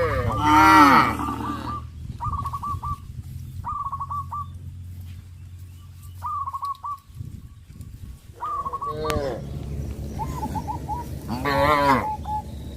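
Cattle mooing: a loud moo at the start and more moos in the last few seconds. Short bird calls repeat in between, over a steady low hum.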